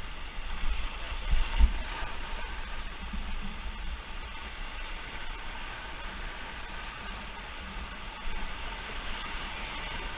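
Steady rush of river water, with wind rumbling on the microphone and a brief louder bump of rumble about a second and a half in.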